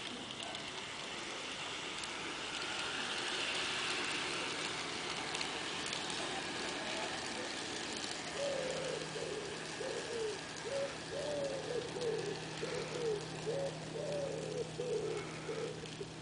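Garden-scale model diesel locomotive running along its track with a steady mechanical hiss of motor, gears and wheels. From about halfway, a pigeon coos in a repeated series of low notes over it.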